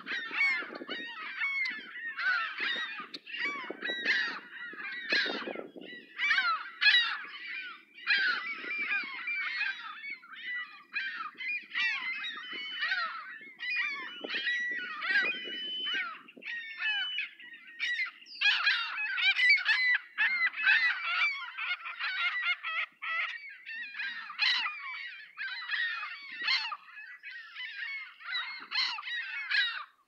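A flock of gulls calling overhead: many overlapping short cries and squeals that slide in pitch, almost without a break.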